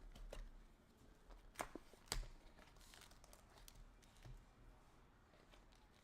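Faint crinkling and tearing of hockey card pack wrappers being opened and handled, with a couple of sharp clicks of cards or packaging about a second and a half and two seconds in.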